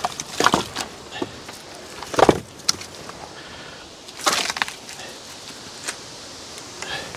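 Split birch firewood logs being set down and stacked in a woodpile: hollow wooden clunks and knocks at irregular intervals, the loudest about two and four seconds in.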